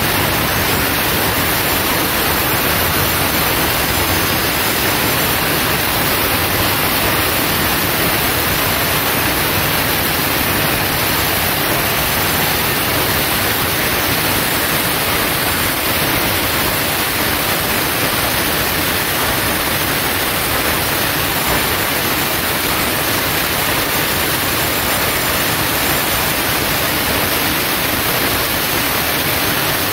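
Angle grinder with a thin cutting disc running under load, cutting straight through a floor tile: a steady, loud grinding hiss with no let-up.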